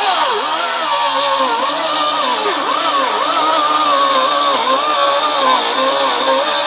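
High-speed rotary tool with a cut-off wheel cutting, its motor whine dipping and recovering in pitch as it is loaded into the cut.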